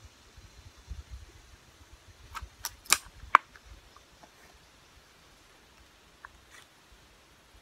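Four sharp metallic clicks in about a second, the last two loudest, then two faint clicks a few seconds later: a .22 air rifle's action being worked in the hands as it is readied to fire.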